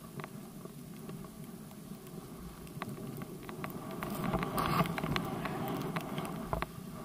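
Skis sliding and hissing through soft powder snow, with scattered small clicks and knocks from the gear, growing louder about four seconds in as the descent picks up.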